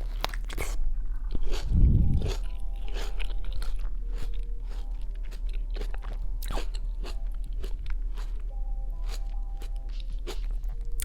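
Biting into a juicy tomato and chewing it, close to the microphone: one loud bite about two seconds in, then chewing with many sharp small clicks.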